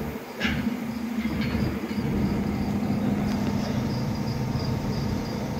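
A steady low mechanical hum sets in about half a second in, just after a couple of light clicks, and runs on evenly.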